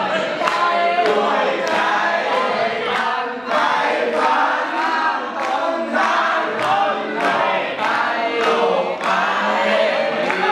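A crowd of people singing along together, with clapping in time at about two claps a second.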